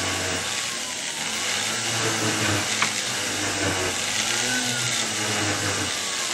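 Jeweller's pendant drill (flex-shaft handpiece) running a Tripoli-charged bristle brush against the inside of a wedding band to polish it. The motor's whine rises and falls as the speed changes, with one sharp tick near the middle.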